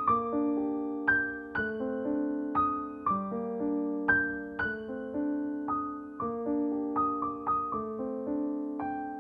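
Background music: a piano playing slow, gentle chords and notes, about two a second, each left to ring.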